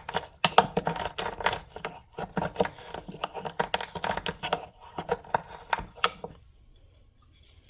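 Wooden pestle crushing white peppercorns in a small mortar: rapid, irregular crunching and cracking clicks that stop about six seconds in.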